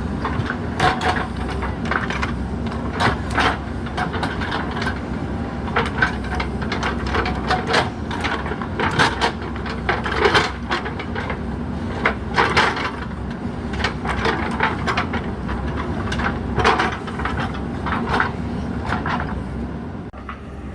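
JCB 3DX Super backhoe loader's diesel engine running steadily under working load, with frequent irregular knocks and clatters from the bucket working soil.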